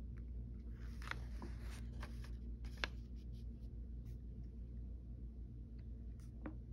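Pages of a paper manual being turned by hand: a soft rustle with a few light clicks about one to three seconds in, over a steady low hum.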